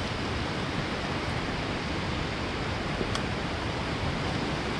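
Steady rush of a swollen river's fast white water running over rocks.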